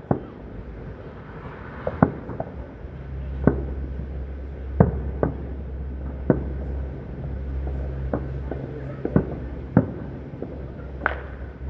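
Aerial fireworks bursting, a string of sharp bangs about once a second at irregular spacing, over a low steady hum.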